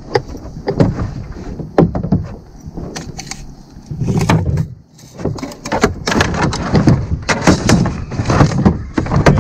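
Irregular knocks and thumps against a plastic boat's hull and deck as a landing net holding a large northern pike is handled on board.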